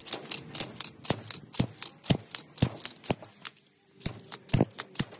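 ARES slide hammer's weight striking its stop over and over, pulling the inner axle bearing out of a Dana 44 third member: sharp metallic clanks about twice a second, with a short break a little past the middle.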